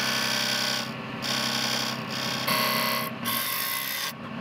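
Hand chisel cutting a taper into a spinning wooden spool on a wood lathe: a scraping hiss from the cut that breaks off briefly several times as the tool is eased in and out, over the steady hum of the lathe motor.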